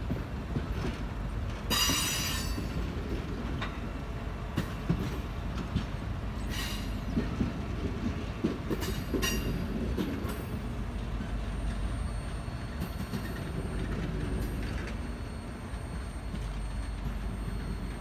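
Norfolk Southern passenger cars rolling past at speed, their wheels rumbling and clacking over the rail joints. Short high wheel squeals come about 2 seconds in and again around 6 and 9 seconds.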